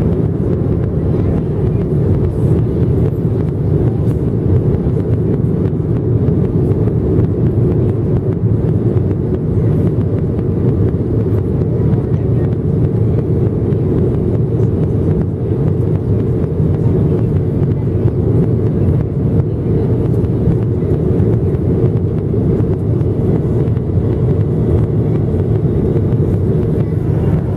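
Steady cabin noise inside a Boeing 737-700 in flight: the even, deep rush of its CFM56 turbofan engines and the airflow over the fuselage, unchanging throughout.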